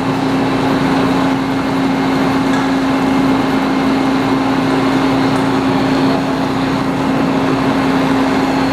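Metal lathe running steadily while machining a sawmill mandrel collar, with a constant hum.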